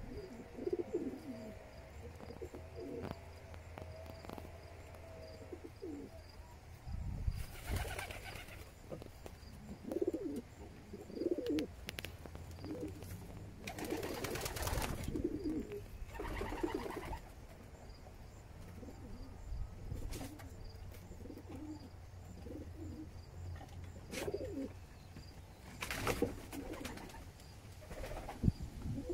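Homer pigeons cooing repeatedly in a loft, low pulsing coos one after another, with a few short bursts of rustling noise in between.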